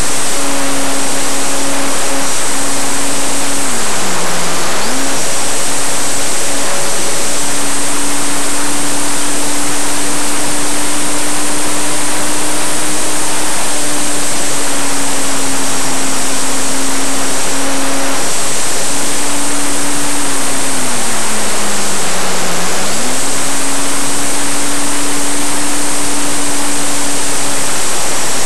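Airflow rushing loudly over an onboard camera microphone on a Parkzone electric RC warbird in flight, with the steady whine of its electric motor and propeller. The whine drops in pitch twice, about four seconds in and again about twenty-one seconds in, then comes back up.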